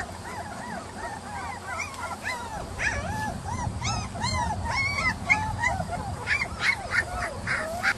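Three-week-old German shepherd puppies whimpering and yelping: many short, high, arching cries, one after another and overlapping.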